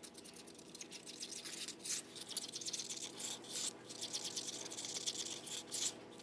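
Mixing stick stirring resin and dye in a small plastic cup: a rapid scraping, broken by a few short pauses, over a steady low hum.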